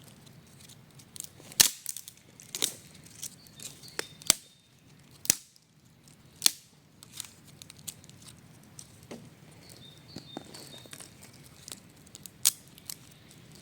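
Close handling noises at camp: a series of sharp, irregular snaps and clicks, a dozen or so, with light crinkling between them.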